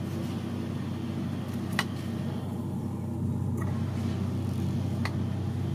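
A steady, low engine-like drone, with two sharp clicks, one a couple of seconds in and one about five seconds in.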